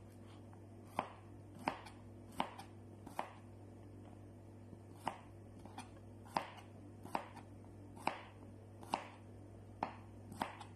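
Kitchen knife slicing bitter gourd (ampalaya) on a cutting board: a sharp chop about every second, with a pause of about two seconds near the middle, over a steady low hum.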